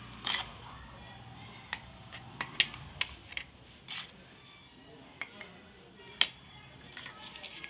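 Steel spoon clinking against a small glass cup and a plate as crushed chocolate-bread crumbs are scooped and spooned in: a string of sharp, irregular clinks.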